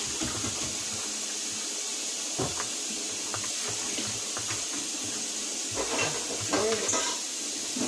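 Kitchen tap water running steadily into a sink as dishes are washed, with a few light clicks and scrapes.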